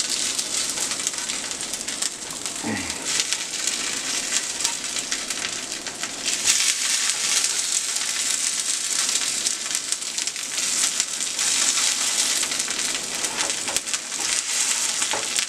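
Hash brown patties sizzling in hot oil in a nonstick frying pan, a steady hiss full of small crackles, while they are turned with a slotted spatula.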